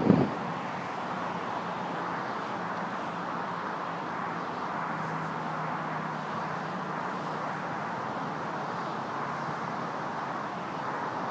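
Steady traffic noise from a nearby street, with a low engine hum from a passing vehicle through the middle. A short thump right at the start.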